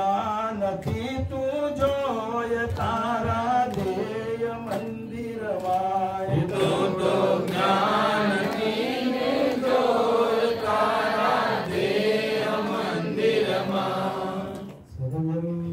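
Male chanting of a devotional hymn in a slow, steady melody with long held notes. There is a brief break near the end before the next line begins.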